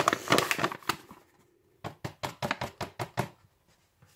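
Flour poured from a paper bag into a glass bowl, the bag rustling, followed a little under two seconds in by a quick run of about eight sharp taps.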